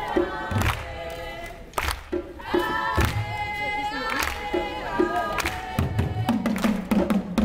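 A group of voices singing together over regular strokes of a large Zulu drum and djembes. About six seconds in, the drumming turns into a quicker, busier beat.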